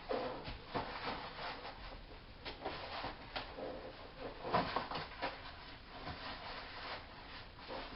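Eggs and egg cartons being handled: scattered light clicks, taps and rubbing.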